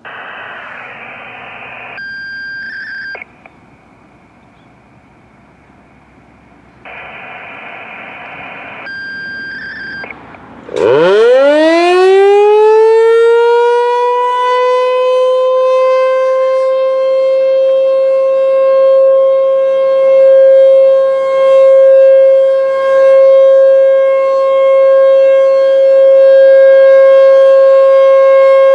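American Signal T-128 rotating electromechanical warning siren spinning up from a low growl into a rising wail that settles into a loud steady single-tone alert, swelling and fading every second or two. Two short hissy bursts with beeps come before the siren starts, about ten seconds in.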